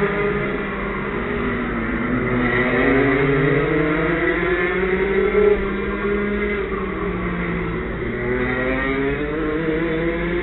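Several go-kart engines running at once, their pitch rising and falling as they rev and ease off, the kart's own engine close by with others overlapping.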